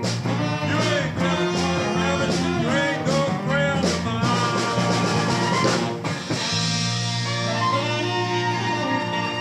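Live band playing a bluesy rock-and-roll number: guitar lead with bent notes over drums. About six seconds in the drums stop and a held chord rings out.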